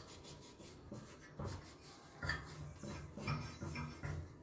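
A cloth rubbing over a blackened sheet-metal clock frame in repeated, uneven wiping strokes.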